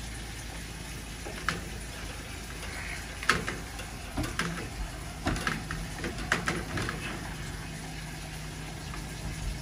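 Water rushing through a drain pipe, with scattered sharp knocks and clicks as loosened grease scale breaks away.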